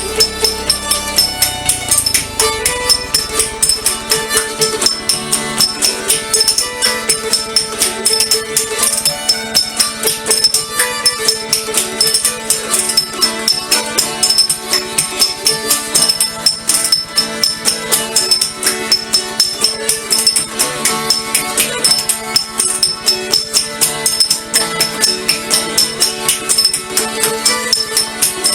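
Background music with a fast, steady beat of jingling tambourine-like strokes over a held melody line.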